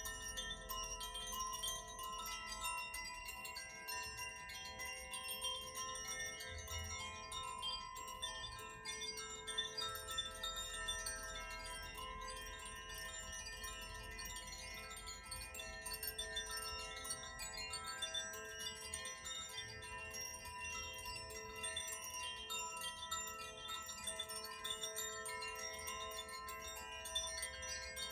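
Koshi- and Zaphir-type tuned wind chimes played by hand, a continuous shimmer of many overlapping ringing tones as the inner rods keep striking, each note sustaining and blending into the next.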